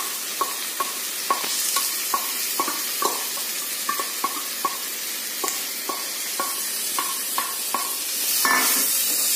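Onions sizzling in hot oil in a nonstick kadai while a wooden spatula knocks repeatedly against a steel bowl, about two to three sharp taps a second, scraping moong dal into the pan. Near the end the sizzling grows louder.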